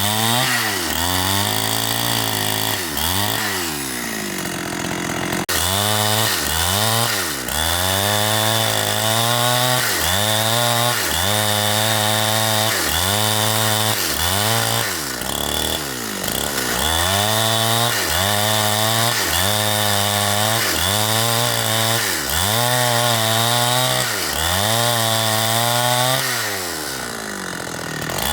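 Chainsaw engine revving up and dropping back again and again, roughly every one and a half to two seconds, under a steady lower running note.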